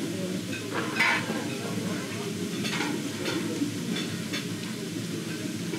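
Eating utensils clicking and scraping against a bowl during a meal, over steady background noise. A few separate clicks, the loudest about a second in.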